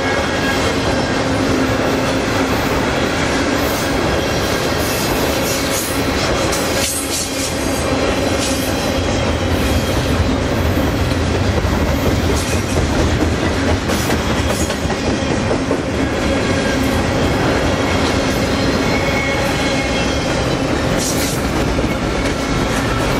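Double-stack container train's well cars rolling past close by: a steady loud rumble of steel wheels on rail, with clicking over rail joints and a faint steady wheel squeal.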